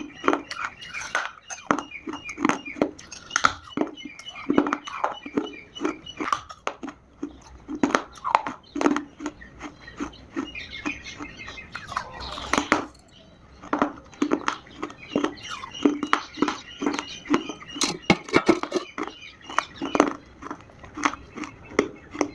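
Chunks of Multani mitti (fuller's earth clay) being crunched and chewed close to the microphone: a rapid, irregular series of dry, crackly crunches with a brief lull a little after the middle.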